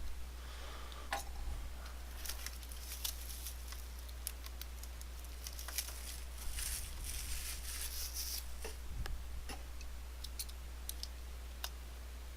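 A sealed box of trading cards being handled and opened: scattered small clicks and rustling of wrapper and cardboard, with a denser crinkling stretch past the middle. A steady low hum runs underneath.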